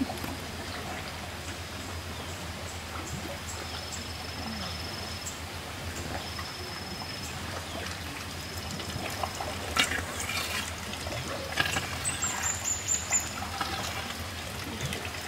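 An elephant chewing its food, its jaws crunching in a run of loud crunches from about two-thirds of the way in, over a steady wash of running water.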